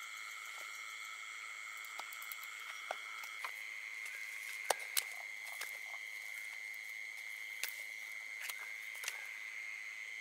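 Steady chorus of night insects trilling at several pitches, one of the lower ones stopping about a third of the way in. Over it, scattered soft clicks and rustles of someone moving over muddy, grassy ground, with two sharper clicks close together near the middle.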